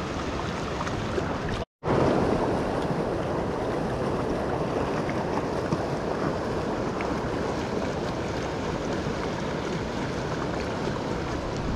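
Shallow river rushing over a riffle, a steady wash of water noise, broken by a brief total dropout about two seconds in.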